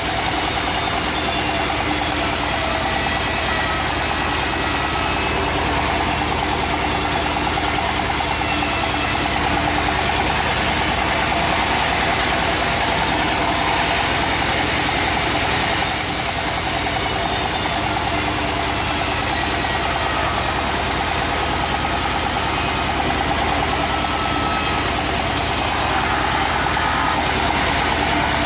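A wood-cutting machine running steadily with a constant engine-like drone. The high hiss changes character a few times, as the load shifts.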